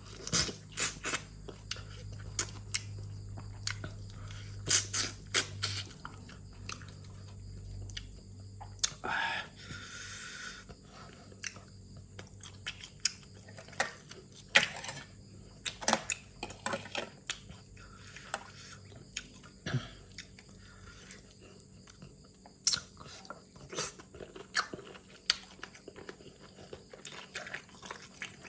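Close-miked eating of a mixed seafood salad: chewing and biting with irregular sharp clicks, smacks and crunches.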